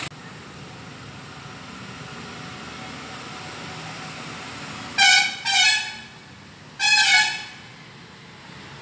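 A horn honks three times: two short honks close together, then a slightly longer one a second later.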